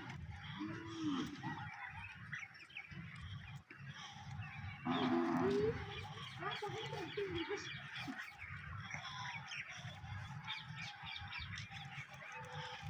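Faint honking bird calls, several short rising and falling honks, the loudest about five seconds in, with small bird chirps in the background.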